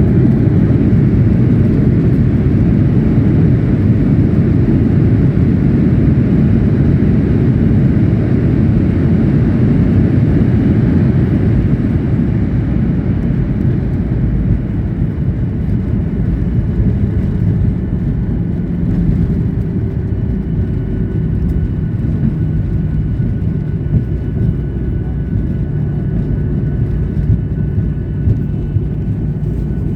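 Cabin noise of a jet airliner landing: a loud, steady low rumble of engines and airflow that eases off a little after about twelve seconds. Faint whining tones come in during the second half.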